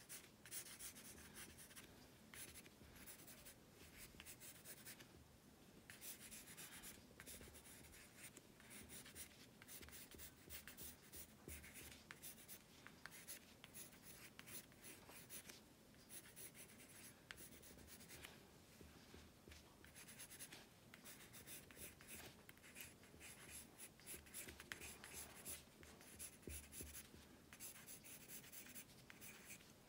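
Pencil sketching on paper: soft, quick scratching strokes, short and irregular, one after another.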